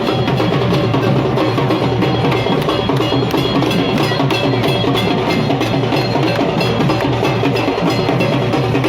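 Background music: an instrumental track with a steady, quick wood-block beat and bells over it.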